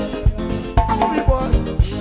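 A live band playing, with a drum kit keeping a steady beat of kick-drum strokes about twice a second and a melody line over it.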